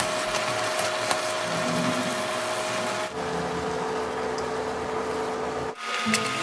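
Marinated pork sizzling as it is stir-fried over high heat in a nonstick pan, with a wooden utensil stirring and scraping the meat.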